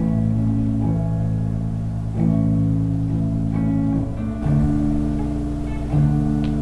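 Slow instrumental music: held chords that change every second or two.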